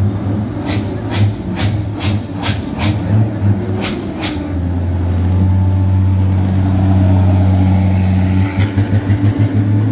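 Heavy parade trucks driving past at close range, their diesel engines running. A steady low engine drone swells in the middle as one truck goes by. For the first few seconds a regular ticking beat, about three a second, runs over it.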